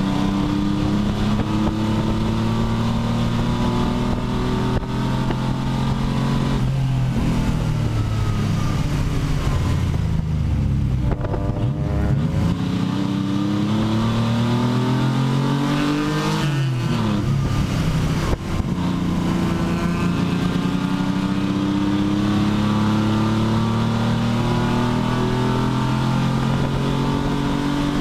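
Pontiac Fiero race car's engine heard from inside the cockpit, running hard at racing speed with road and wind noise. The engine note falls and climbs back up about ten seconds in and again around seventeen seconds, then holds steady.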